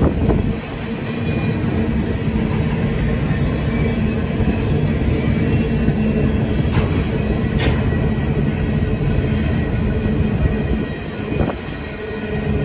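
Covered grain hopper cars of a Canadian Pacific freight train rolling past: a steady rumble of steel wheels on the rails, with a few sharp clicks and knocks, two of them about seven seconds in and one more near the end.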